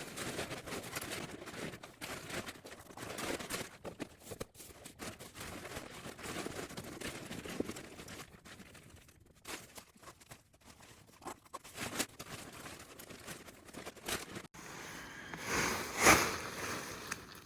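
Rustling and crinkling of lightweight tent fabric and camping gear being handled and packed away, with scrapes and small clicks and a louder swish near the end.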